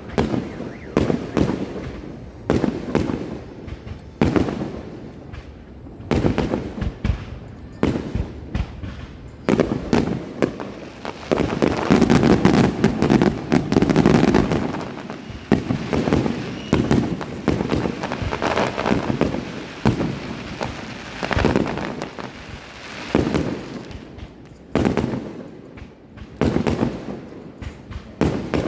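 Fireworks display: aerial shells bursting one after another as a string of sharp bangs, thickening into a dense barrage of rapid booms from about twelve to fifteen seconds in.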